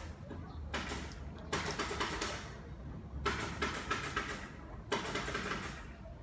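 Water splashing in several short bursts as a snapping turtle paddles in a shallow plastic tub, over a low steady hum.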